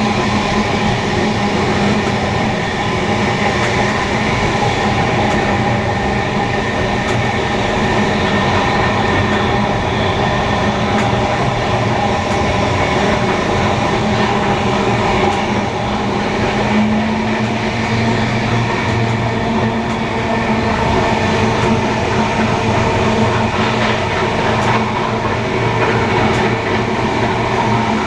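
Steam-hauled heritage passenger train running along the line, a steady loud rolling noise of wheels on rail that holds even throughout.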